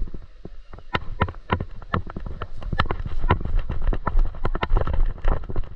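Running footsteps with the rattle of a carried paintball marker and gear: a quick, fairly even series of knocks, about three a second, over a low rumble of movement on the microphone.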